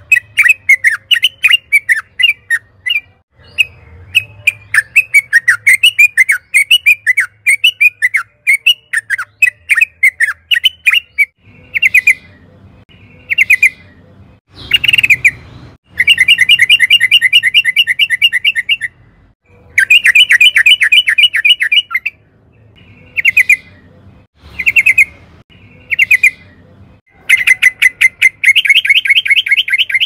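Yellow-vented bulbul singing loudly. A fast, continuous run of bubbly chattering notes lasts about eleven seconds, then breaks into short bursts of very rapid rolling trills, the longest lasting about three seconds.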